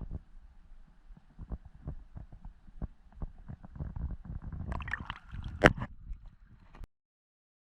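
Irregular low thuds and knocks of gear being handled on a fishing kayak, with a sharp click about five and a half seconds in. The sound then cuts off suddenly.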